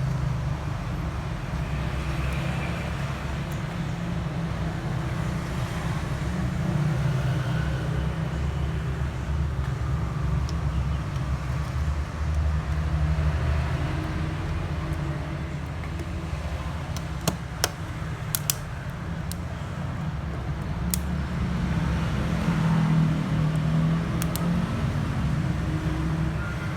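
Steady low background rumble, like road traffic, with a few sharp clicks in the second half.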